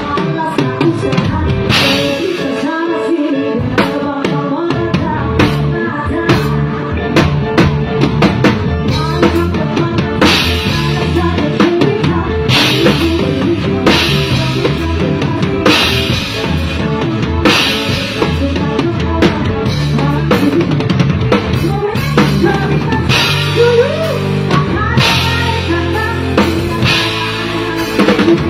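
Live rock band playing, with the drum kit loud and close: a steady kick-and-snare beat with repeated cymbal crashes under a singing voice.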